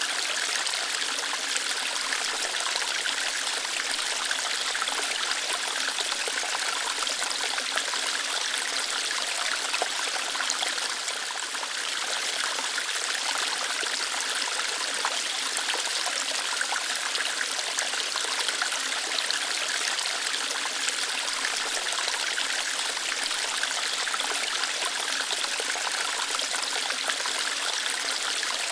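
Small waterfall flowing lightly over rocks: a steady, even rush of splashing water that keeps up without a break.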